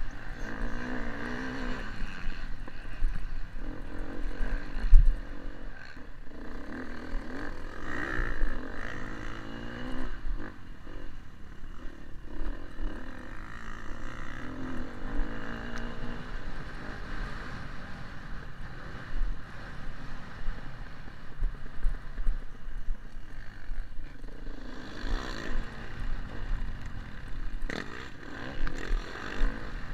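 Motocross bike engine heard from an onboard camera, revving up and dropping back again and again as the rider works the throttle around the track, over a low rumble of wind on the microphone. Short knocks and thumps from the rough track, the sharpest about five seconds in.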